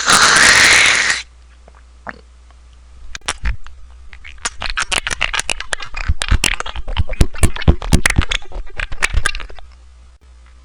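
A loud rasping noise that cuts off about a second in, then after a pause a long run of irregular sharp clicks and crackles.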